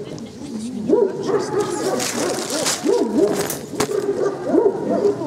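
A dog whining in repeated high, wavering cries that glide up and down, a few seconds of near-continuous whimpering.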